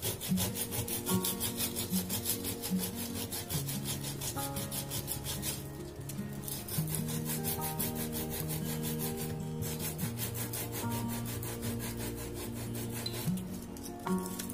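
Sanding block rubbed back and forth along the edge of a decoupaged MDF cutout in quick, repeated scratchy strokes, wearing off the excess napkin tissue. Soft background music with slow held notes plays underneath.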